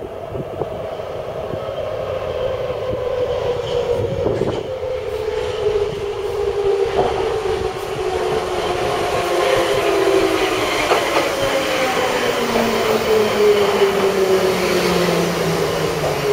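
Soviet-built Ev-series metro train (Metrowagonmash, Mytishchi) arriving through the tunnel and into the station, growing louder as it comes. Its motor and gear whine falls steadily in pitch as it brakes to a stop, with a few sharp clicks along the way.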